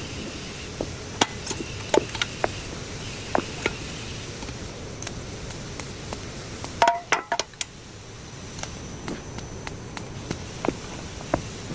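Steady hiss of a TIG welding arc, with scattered sharp metallic clicks and taps. About seven seconds in, a quick run of louder clicks comes as the hiss briefly drops, then the hiss picks up again.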